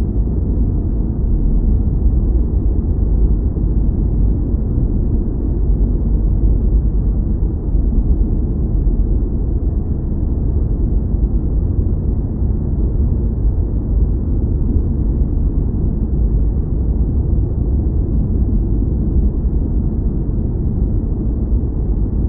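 Steady deep noise of a sci-fi spaceship cockpit ambience, like brown noise, with most of its weight in the lowest bass and little above the low midrange. It holds unchanged, with no tones or events.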